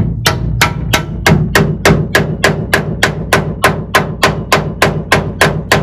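A hammer driving a spiral screw nail up through sheet-metal channel into the wood of a Ford Model A windshield header, in a steady run of quick, even strikes, about three a second.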